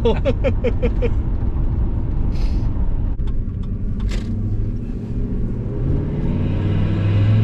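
Cab of a single-turbo 2003 Ford F-150 on the move: steady low engine and road rumble, with a short burst of laughter in the first second. About six seconds in, the engine note grows louder and deeper as the truck starts to pull harder.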